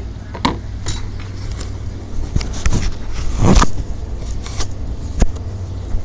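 Footsteps on wooden steps and knocks from the handheld phone being carried, over a steady low rumble, with a heavier thump about three and a half seconds in.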